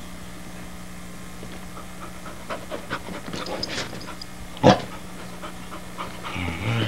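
Wheaten terrier puppy panting close to the microphone in short, uneven breaths, with one sharp loud sound about two-thirds of the way through.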